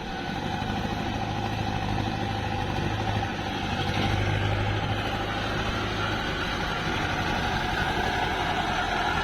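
Heavy diesel engine of construction machinery running with a steady low drone. It grows slightly louder in the first second.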